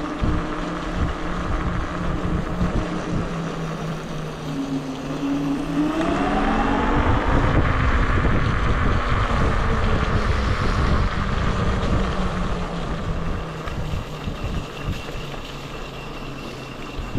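Wolf King GTR electric scooter riding along with its rear brake disc rubbing on the pads: a droning hum of several tones that glide up in pitch about six seconds in as speed builds, over wind rumble on the microphone.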